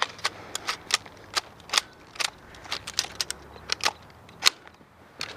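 Airsoft guns firing a string of irregularly spaced sharp snaps, with the loudest shot about four and a half seconds in.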